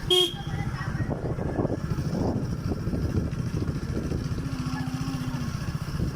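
A motor vehicle's engine running steadily on the move, with a fast, even low pulsing.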